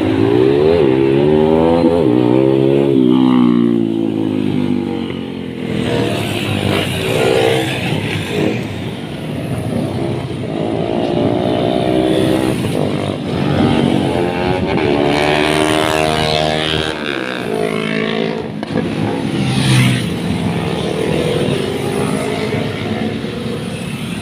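Motorcycle engines revved hard as bikes ride past one after another, the pitch climbing and falling with each rev and pass, several times over.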